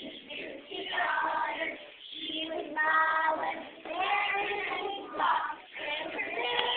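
Young children singing together.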